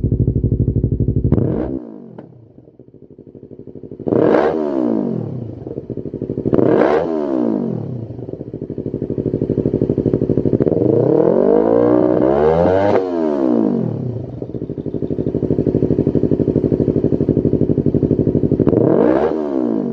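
Yamaha YZF-R3's 321 cc parallel-twin engine through a Lextek GP1 full exhaust system, idling and revved in about five throttle blips. Each blip rises and falls back to a steady idle, and the fourth is held longer with two peaks.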